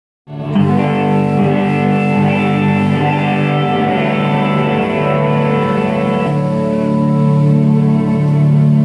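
Live band music led by an electric guitar played through effects, holding sustained, ringing chords. It cuts in just after the start and moves to a new chord about six seconds in.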